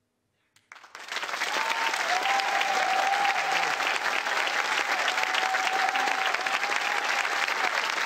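Studio audience breaking into applause and cheering, starting suddenly just under a second in after a brief silence at the end of the song, then holding steady.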